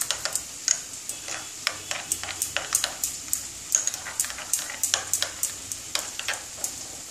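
Metal spoon clinking and scraping against a small glass bowl while stirring a thick yogurt and nut-paste mixture, in quick, uneven taps, several a second.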